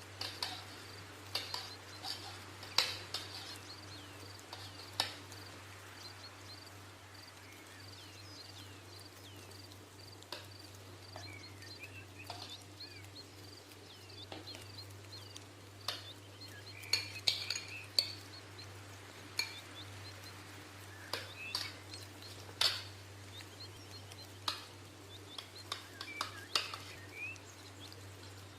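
Metal utensils clinking and scraping against steel cookware in irregular, sharp knocks, with small birds chirping in the background.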